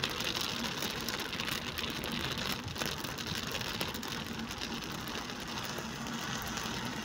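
Rain hitting a moving car's roof and windscreen as a dense, fine ticking, heard inside the cabin over a steady hiss of tyres on the wet road.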